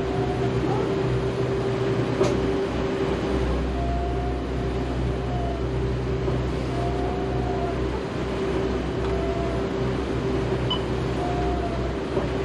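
Motor yacht's engines running steadily at cruising speed, heard inside the enclosed helm as a constant low drone with a steady hum on top.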